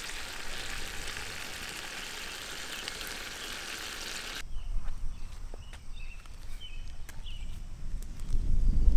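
Spaghetti and seafood sauce sizzling steadily in a pan over campfire embers while being tossed with tongs; the sizzle cuts off abruptly after about four seconds. Then birds chirping, with a low rumble building near the end.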